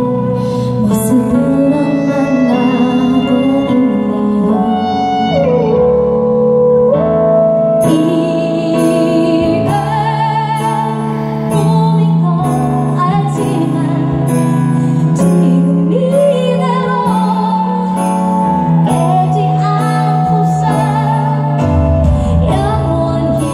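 A female singer performing a slow ballad live with band accompaniment, her voice holding long notes over the band, heard through a concert PA system from within the crowd.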